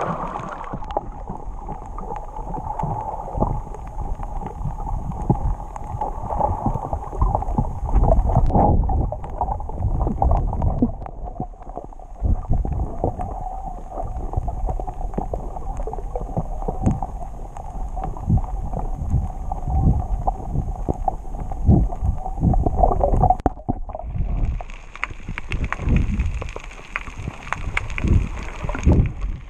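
Muffled water sloshing and gurgling with many low bumps, as heard by a camera in or at the surface of the sea. About 24 seconds in the sound turns brighter and hissier.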